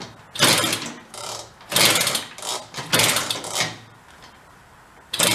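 Benelli Buzzer mini bike's 65cc two-stroke engine being kick-started several times in quick succession, each kick spinning it over in a short burst of rapid chatter without it catching; the kicking stops about four seconds in. It is being tried without choke and is not drawing up fuel.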